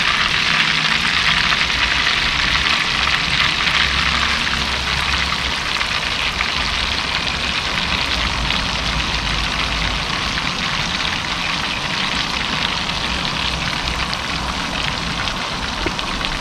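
Battered razor clams frying in hot oil in a skillet: a steady, dense sizzling crackle, a little louder in the first few seconds and then easing slightly.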